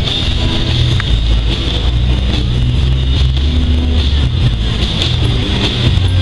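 Intermodal freight train cars rolling past: a steady, loud rumble of steel wheels on rail with a constant high hiss.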